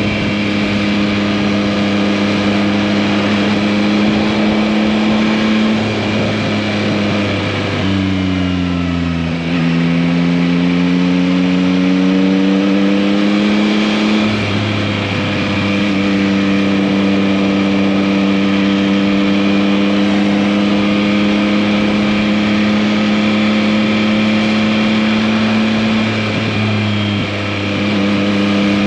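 Engine of a 2021 Yamaha MT-09, its 890 cc inline three-cylinder, pulling the bike along at a mostly steady pitch. About eight seconds in the engine note drops, then climbs for several seconds before settling back to a steady pitch.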